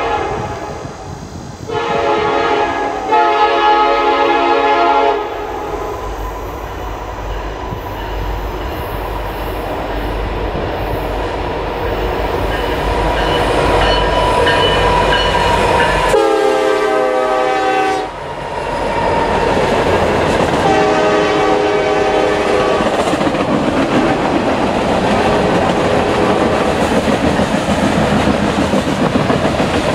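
Norfolk Southern diesel freight train passing close by, sounding its air horn: blasts in the first few seconds as it approaches, a loud one about sixteen seconds in just after the locomotive goes by, and a shorter one a few seconds later. Underneath and after, the steady rumble and clickety-clack of covered hopper cars rolling past.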